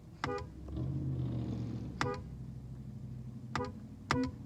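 Car horn tapped in quick short beeps, four times. A low engine rumble swells about a second in and eases off before the last two beeps.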